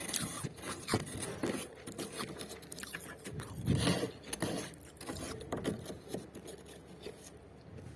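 Freezer frost crunching and crackling close to the microphone, in irregular crisp bursts with a louder crunch about four seconds in.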